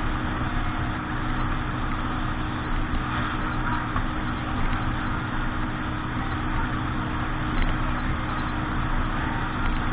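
A motorboat engine running steadily at an even speed, with a constant rushing noise over it.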